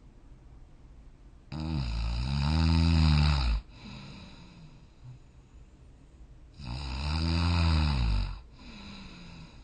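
A sleeping person snoring: two long snores about five seconds apart, each rising and then falling in pitch, with softer breathing between them.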